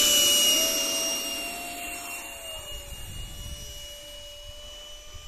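Electric ducted fans of an RC flying wing whining at high power as it lifts off the grass and climbs away. It is a steady high whine with a lower tone beneath, loudest at first and fading over the next few seconds as the model gets farther off.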